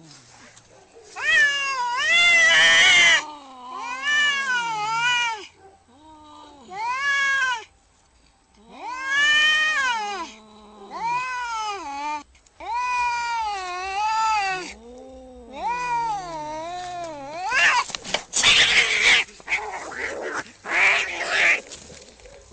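Angry domestic cat yowling: about seven long, wavering, drawn-out howls. In the last few seconds these give way to harsh, noisy hisses.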